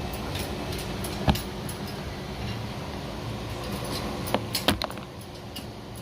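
A metal pick prying a small plastic trim cover out of a car door panel: a few sharp plastic clicks, the loudest about a second in and a quick cluster a few seconds later, over a steady low hum.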